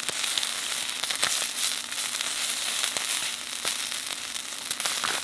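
Chicken skin skewers sizzling on a grill grate over a wood fire, a steady hiss broken by sharp crackles and pops from the fat and the burning firewood.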